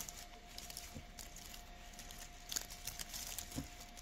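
Faint rustling and crinkling of a fabric ribbon bow being handled and arranged against fir and holly foliage, with a few small clicks. A faint steady hum sits beneath.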